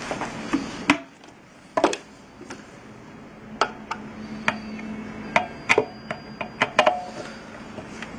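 Irregular sharp clicks and knocks of a plastic-cased dental amalgamator being handled and turned over on a bench, about a dozen in all.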